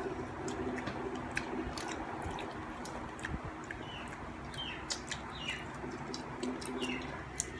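Soft chewing and mouth clicks while eating bread, with a few short falling chirps from a small bird in the background about halfway through and later.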